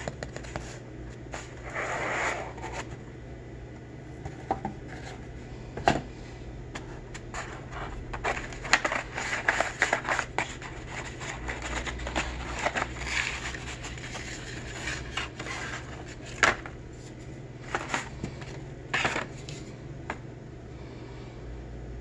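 Cardboard box being handled and opened: the lid scraping and sliding off, then the packed meat cleaver lifted out, in a string of scrapes, rustles and small knocks over a low steady hum.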